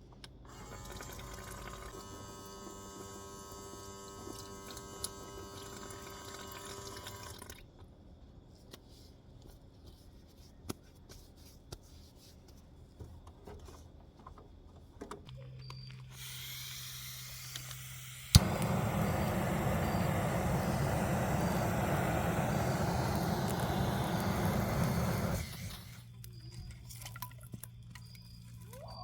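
Water running steadily as a loud rush, starting abruptly with a click about 18 seconds in and stopping suddenly about seven seconds later.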